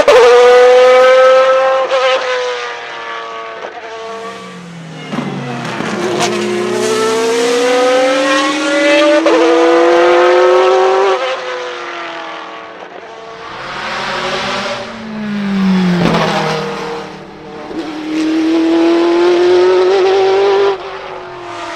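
Naturally aspirated engine of a GT1-derived race car accelerating hard through the gears. Its pitch climbs and then drops at each upshift several times; it eases off in the middle with a low falling note, then pulls away again and cuts off sharply near the end.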